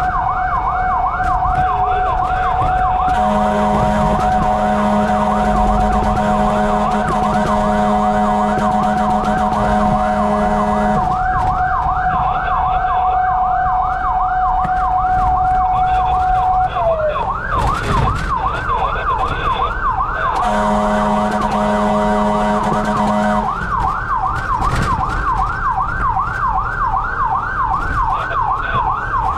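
Fire truck's electronic siren yelping fast, about three sweeps a second, with a second siren holding one steady tone that slides down and stops about two-thirds of the way through. A long horn blast sounds a few seconds in, and a shorter one follows later.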